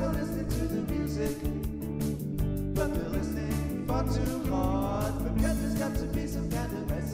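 Background music: a song with a singing voice over a band.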